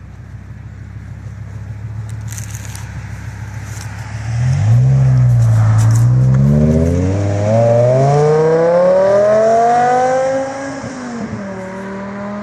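BMW M5 engine running at a low rumble, then about four seconds in it gets suddenly loud and its pitch climbs steadily for about five seconds as it revs up under acceleration. About ten and a half seconds in it drops back to a quieter, lower, steady note.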